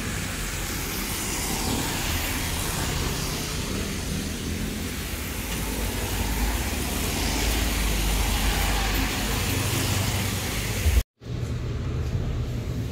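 Car traffic on a wet road: engine rumble and the hiss of tyres on wet pavement as a car passes. About 11 s in it cuts off abruptly, and a quieter steady low hum follows.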